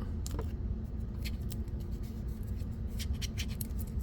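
Hands handling wireless earbuds and their plastic charging case: scattered small clicks and scrapes, thickest near the end, over a steady low hum.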